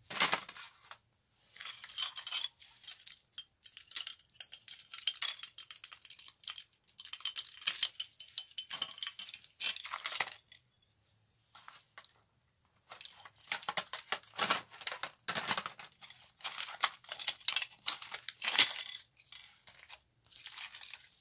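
Small tablet circuit boards, flex ribbon cables and plastic parts clicking, clattering and rustling as they are handled and dropped onto a pile on a tile floor. The sounds come in irregular bursts, with short pauses about a second in and again around the middle.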